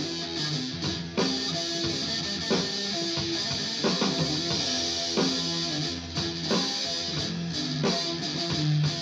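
Electric guitar played through an amplified speaker, picking single-note phrases with clear attacks, over a steady hiss.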